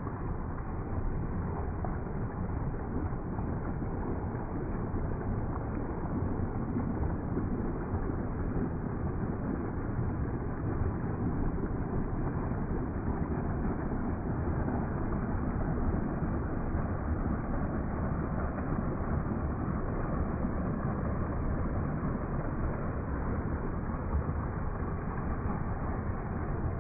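Steady, deep rush of water from a small rocky stream and a little waterfall pouring into a pool.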